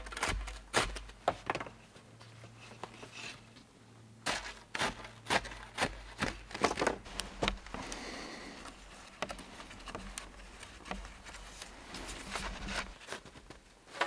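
Dry wooden poles knocking and scraping against each other as they are stood up and leaned together, in irregular clusters of sharp knocks. About eight seconds in comes a softer rubbing as cord is wrapped around two poles to lash them.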